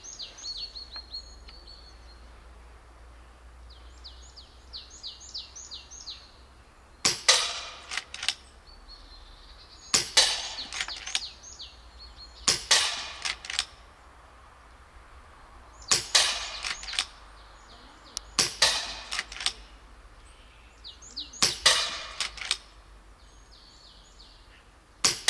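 FX Dreamline .30-calibre PCP air rifle, the German-legal 5.5 foot-pound version, firing seven sharp, short shots about three seconds apart, starting about seven seconds in, each followed by a few lighter clicks. Birds chirp in short runs in the first few seconds.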